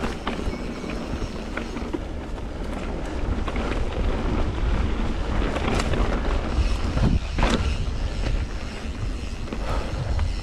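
Mountain bike rolling along a dirt trail: wind rumbling on the microphone over the hiss of the tyres, with scattered clicks and rattles from the bike and a couple of louder swishes about seven seconds in.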